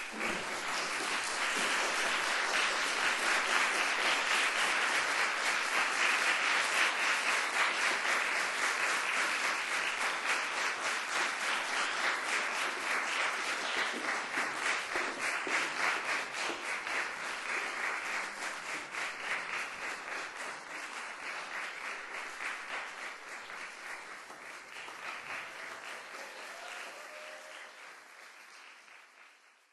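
Audience applauding, starting suddenly as the music stops, loudest over the first several seconds and then slowly thinning and fading away.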